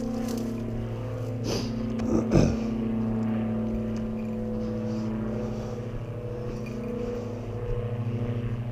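A steady, even-pitched motor hum, with a brief louder noise about two seconds in.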